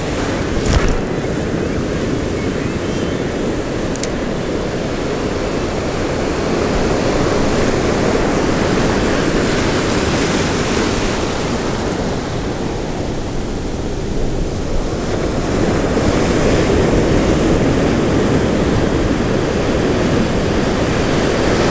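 Heavy ocean surf breaking and washing up a sandy beach, a steady rushing noise that swells louder twice as bigger waves come in.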